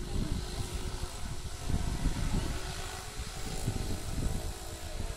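Low, uneven rumble of wind buffeting the microphone, swelling about two seconds in, with faint voices underneath.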